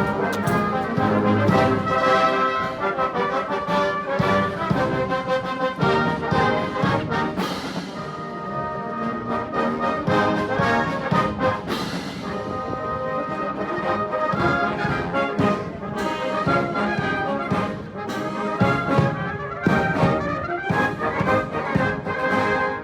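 Massed military band playing: brass with bugles and marching drums in a steady beat.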